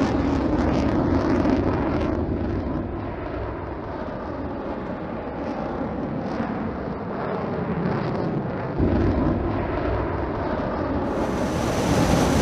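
Sound effect of a spaceship flying fast and low: a steady rushing engine rumble with repeated whooshes that swell and fade. The low rumble gets louder about nine seconds in, and a high hiss comes in near the end.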